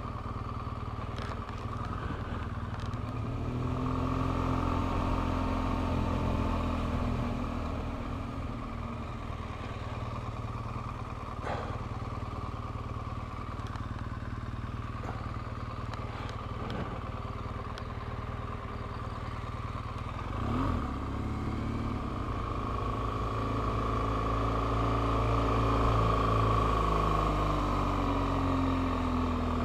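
BMW R1200GS boxer-twin engine running as the motorcycle rides slowly, its revs rising and falling twice as it pulls away and eases off. A few sharp clicks come through in the middle.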